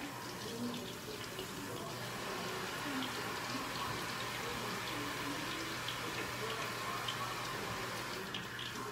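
Kitchen faucet running steadily into the sink while large mushroom caps are rinsed under it.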